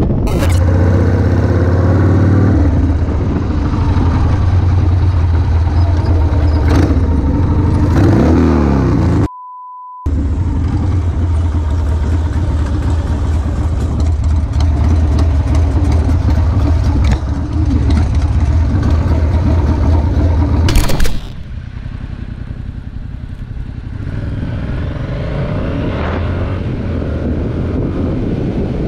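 Motorcycle engine running and revving, heard from an on-bike rider camera with wind noise on the microphone. About a third of the way in, a short steady bleep briefly replaces all other sound. About two-thirds of the way in there is a loud burst, after which the engine is softer under the wind.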